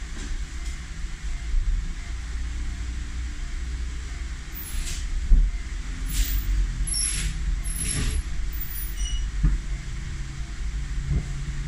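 Low, steady rumble of a Honda Vezel being driven, heard from inside the cabin, with a few short sharp clicks or creaks about midway.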